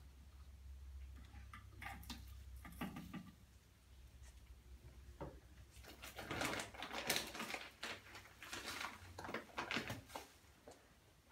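Plastic bottles, caps and a funnel being handled on a table: scattered clicks, taps and rattles, busiest in the second half, over a low steady hum.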